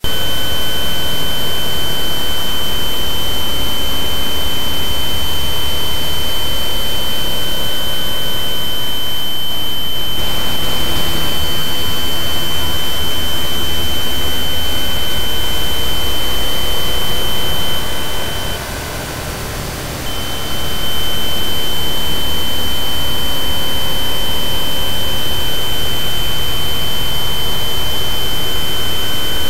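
Electronic healing-frequency track: several steady, high-pitched tones held over a loud, even hiss. About two-thirds of the way through, the tones cut out and the sound drops for a couple of seconds, then comes back.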